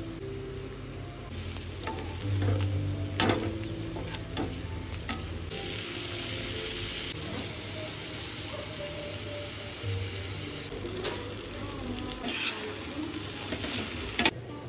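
Onions, spices and chopped tomatoes sizzling in oil in a steel frying pan, with a spatula stirring and scraping against the metal in sharp clicks. The sizzle swells loudest around six seconds in.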